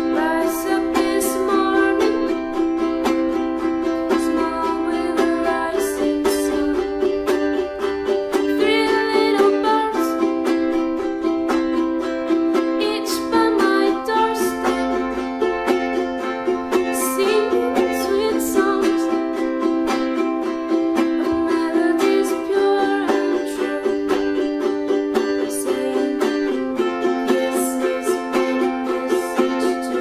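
Ukulele strummed in a steady rhythm, playing the C and F chords of the song, with the chord changing every few seconds.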